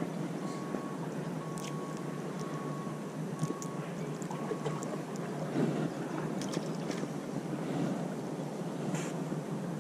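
Steady low rush of wind and harbour water against the rocks, with a few small clicks as fingers work at the hook.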